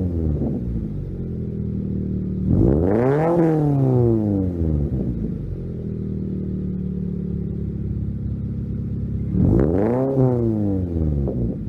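Scion FR-S / Toyota 86 flat-four (boxer) engine breathing through a Greddy cat-back exhaust, idling steadily and blipped twice. Each rev is a quick rise and fall in pitch: one about three seconds in and one near the end. The tail of an earlier rev dies away at the very start.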